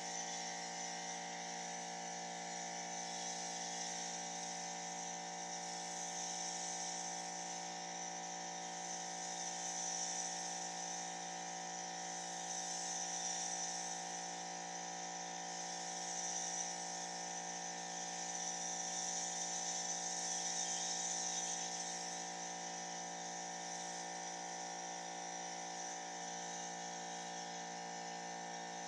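Pressure washer running with a steady hum while its foam cannon sprays soap, the spray hiss swelling and easing every few seconds.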